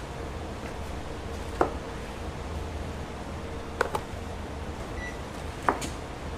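A kitchen knife knocking on a cutting board as fruit is cut: a few sharp knocks a second or two apart, one of them doubled, over a steady hum, with a short electronic beep about five seconds in.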